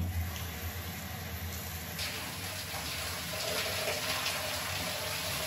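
Handheld shower head spraying a steady stream of water, with a shift in the sound about two seconds in as the spray runs over someone washing their hair.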